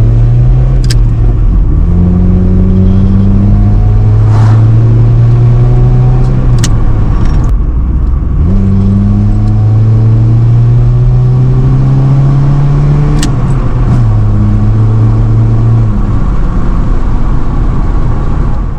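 A 2010 Honda Civic's four-cylinder engine, heard through an aftermarket cat-back exhaust, being revved repeatedly. The pitch climbs and is held, falls back, then climbs again in about three pulls, with a few sharp clicks over the top.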